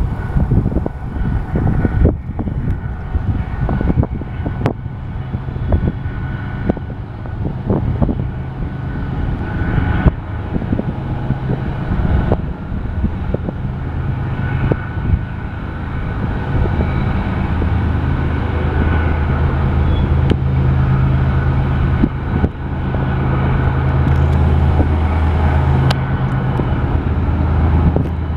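BNSF diesel locomotives hauling an intermodal stack train, a steady low engine rumble that grows louder in the second half. Wind buffets the microphone with short gusts in the first half.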